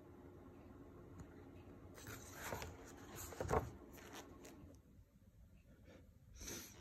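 Paper pages of a large graphic novel being handled and turned: a stretch of rustling and sliding with a thump about three and a half seconds in, then a shorter rustle near the end.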